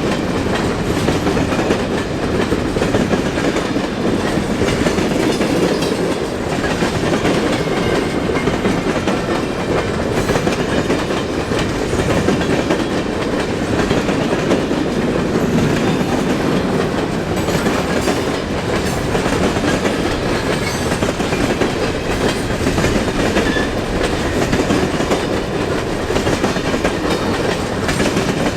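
Freight train cars rolling past steadily, steel wheels running on the rails without a break.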